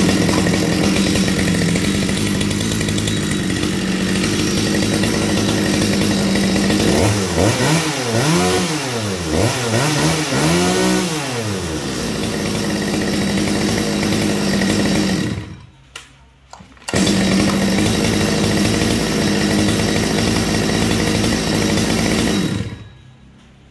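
Stihl 020 two-stroke chainsaw engine test-run after starting: it idles, is revved up and down several times in quick blips, and cuts out for about a second and a half before running again. It stops shortly before the end.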